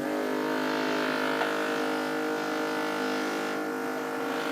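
A machine giving a steady buzzing hum at one fixed pitch.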